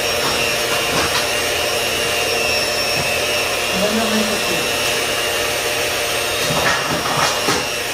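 Electric hand mixer running steadily, its beaters whirring through cake batter in a mixing bowl, with a few clicks near the end.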